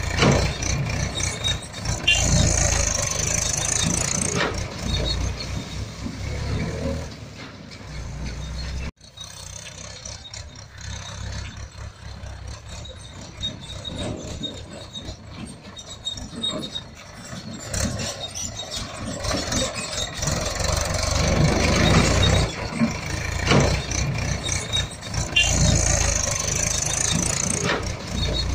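Tractor engine sound running with a low rumble. It drops suddenly about nine seconds in and builds back up later.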